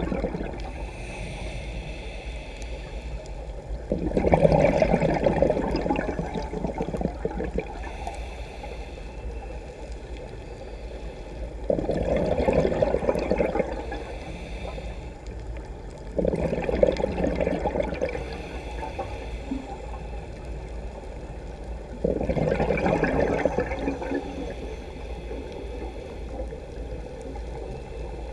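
Scuba regulator exhaust bubbles heard underwater: a diver's exhaled breath gurgles out in bursts of two to three seconds, four times, with a steady low rumble of water between breaths.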